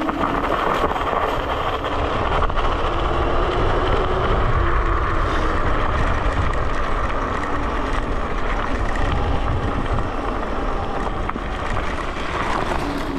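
Electric scooter being ridden: steady wind rush over the microphone, with road and tyre noise. It gets a little louder about two seconds in.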